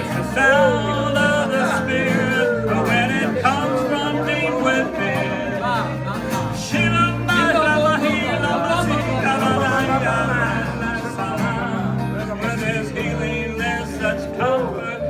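A man singing a gospel song over instrumental accompaniment. His voice glides and bends in pitch over held low chords.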